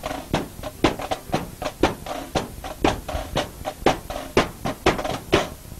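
Marching band drums beating a quick rhythm, about four strokes a second, over a steady held tone, breaking off shortly before the end.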